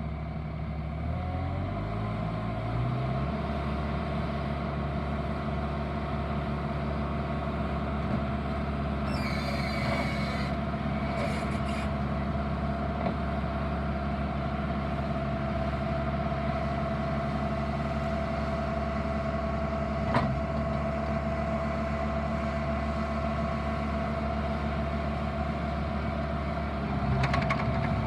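Bobcat T750 skid steer's diesel engine speeding up over the first couple of seconds, then running steadily. A brief hiss comes about ten seconds in, a single sharp click about twenty seconds in, and the engine gets louder near the end.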